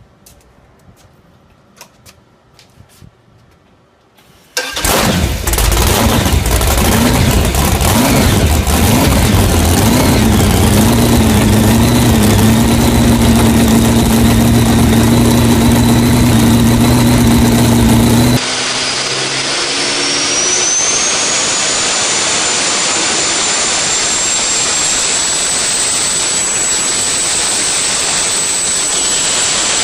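A few seconds of faint clicks, then an engine starts suddenly and runs with a steady drone, its pitch wobbling briefly before it settles. About two thirds of the way through it cuts to a different engine with a high whine that rises over a few seconds, holds steady, and falls near the end.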